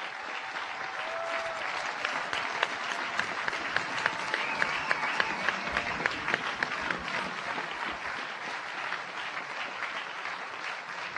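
Crowd of spectators applauding, a dense patter of many hands clapping that eases off a little near the end.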